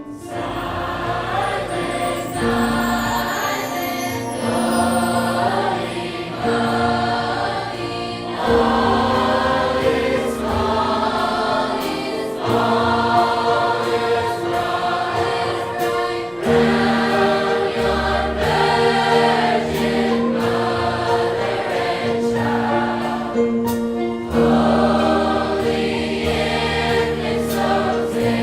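Large high school choir singing a Christmas song, phrase after phrase of a few seconds each over held low notes.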